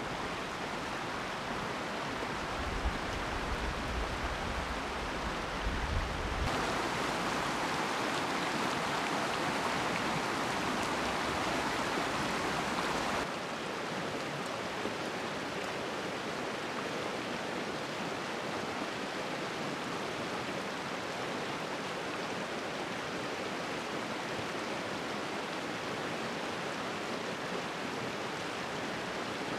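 A stream of running water rushing steadily. Its sound changes abruptly about six and thirteen seconds in, sharper in the middle stretch, with a low rumble during the first few seconds.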